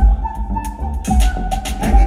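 Live music: an acoustic guitar played in a rhythmic, percussive groove, with sharp strikes and a low thumping beat under sustained notes.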